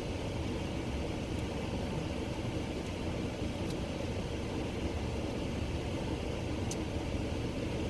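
Steady low rumble of a running car heard inside the cabin, with a few faint small clicks.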